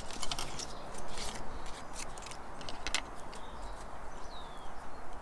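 Paper and a strip of double-sided tape being handled and cut with small scissors: a string of irregular short crackles and clicks. A bird chirps briefly about four seconds in.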